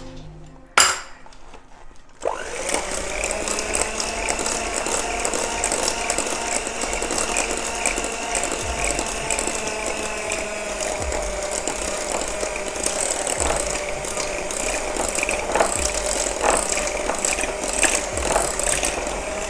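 A short clink under a second in, then an electric hand mixer starts about two seconds in and runs steadily, its beaters working beaten eggs into thick choux pastry dough in a glass bowl with a fast rattling.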